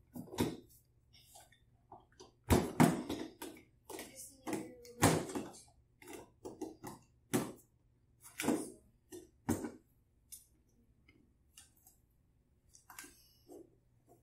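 Wooden toy train pieces clacking and knocking as they are handled and moved on the track: a run of irregular sharp clicks and knocks, thickest in the middle and sparser near the end.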